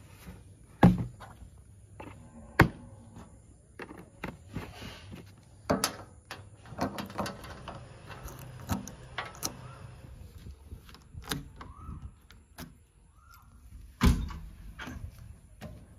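Knocks and clicks of handling at a tractor's filler neck: a plastic funnel and can lifted away and the filler cap screwed on. About fourteen seconds in, a loud thunk as the JCB 3DX backhoe loader's cab door latch is opened.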